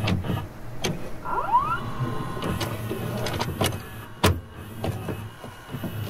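A small motor whirring over a low hum, with a short rising whine about a second in and several sharp clicks, the loudest about four seconds in.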